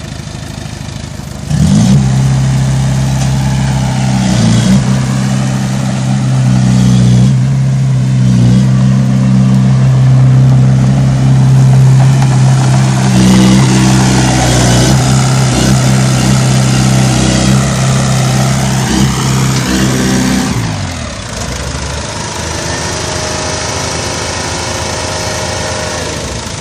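Bulldozer's diesel engine revving up suddenly and running hard under load, as when it pushes a heavy truck, for most of the stretch, then dropping back to a lower, steadier idle near the end.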